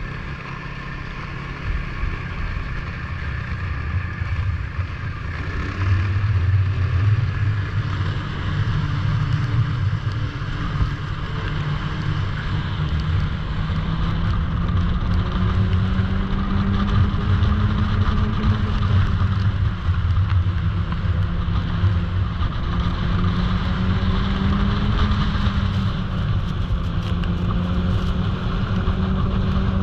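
Snowmobile engine running as the machine rides along. It gets louder and higher about six seconds in, then its pitch rises and falls slowly with the throttle.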